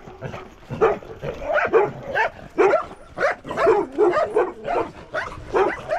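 Dog barking in quick, repeated barks, about two a second.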